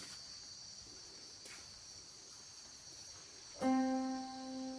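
A steady high-pitched insect drone. About three and a half seconds in, a sustained musical note starts suddenly and is the loudest sound; it holds and slowly fades.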